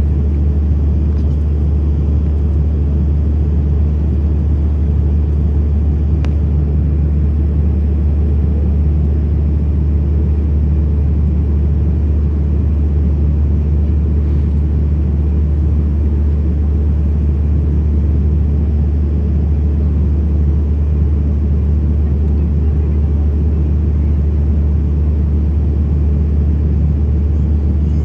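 Steady low roar of cabin noise inside a Boeing 787-9 airliner in flight, heard from a window seat over the wing. It runs even and unbroken, heaviest in the deep bass.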